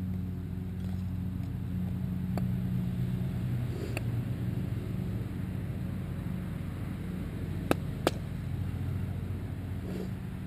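A steady low engine drone with a level pitch, swelling a little in the middle. Two sharp clicks come close together late on.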